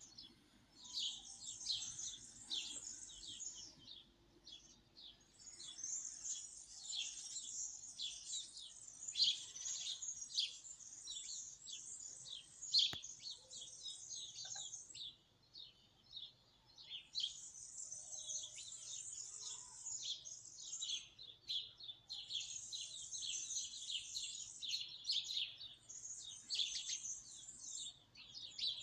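Birds singing: long phrases of rapid, high chirps lasting a few seconds each, with short pauses between.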